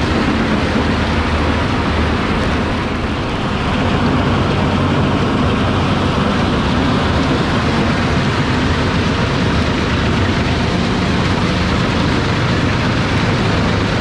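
Jenz HEM 583 drum chipper driven by a Claas Xerion tractor, running steadily under load while chipping treetop wood, with the tractor engine's drone underneath.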